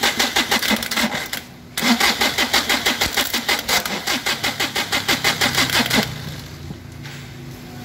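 Daihatsu Charade three-cylinder turbo-diesel engine being cranked on its starter motor from a loose battery, a fast rhythmic chugging of about five to six compression pulses a second. The cranking pauses briefly about a second and a half in, runs again, and stops about six seconds in, leaving a quieter low hum.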